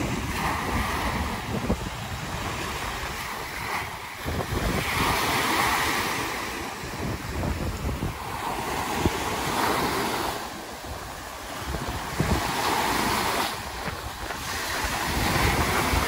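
Small sea waves breaking and washing up a sandy beach, the rush of surf swelling and fading about every three to four seconds. Wind buffets the microphone with a low rumble underneath.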